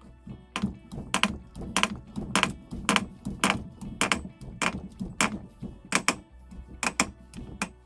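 Background music with a steady percussive beat, about three beats every two seconds, over sustained tones.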